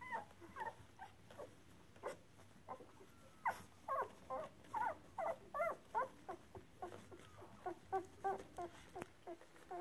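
Two-week-old Brittany puppies whimpering in many short, high calls that bend in pitch, one after another, busiest around the middle.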